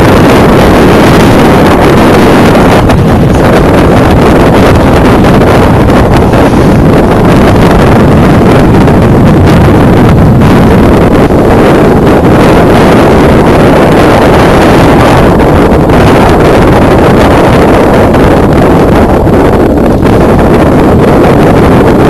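Strong wind blowing across the microphone aboard a small sailing yacht: a loud, steady rushing noise with no engine note in it.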